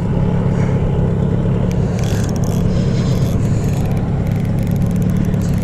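Boat's motor running steadily, a constant low hum.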